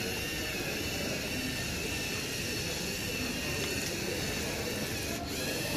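Small tracked robot's electric drive motors whining steadily as it drives across a tiled floor, over a steady hiss. The whine drops out for a moment about five seconds in.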